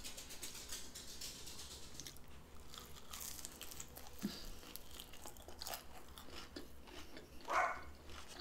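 Close-up chewing and crunching as a fried taco empanada's pastry shell is bitten and eaten: many small, irregular crackles and wet mouth clicks. A short, louder mouth sound comes near the end.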